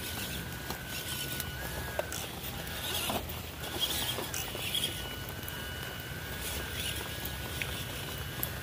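Small electric RC 4x4 trucks (WPL C24) driving off-road: a thin motor whine that wavers slightly in pitch, with scattered crackles and clicks of the tyres and chassis over dirt and stones.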